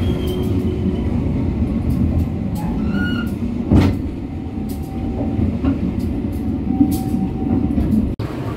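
Economy passenger coaches rolling past on the adjacent track: a steady rumble of steel wheels on rail, with a sharp loud clack a little under four seconds in.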